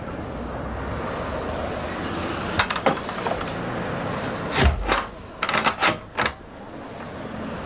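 A handful of sharp knocks and clunks, about six, with the loudest a thump about halfway through. A steady background hiss runs under the first half and then drops away.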